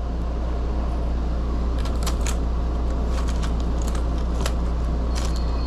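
Light clicks and rattles of a clear plastic tackle box and the lures in it being handled, several from about two seconds in, over a steady low hum.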